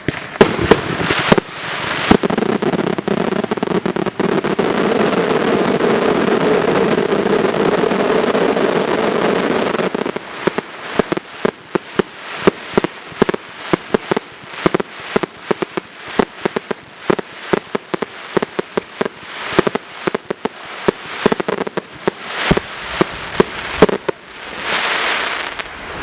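Fireworks going off in quick succession. First comes about eight seconds of dense, continuous crackling, then a rapid run of sharp separate bangs, several a second, with a short rushing swell near the end.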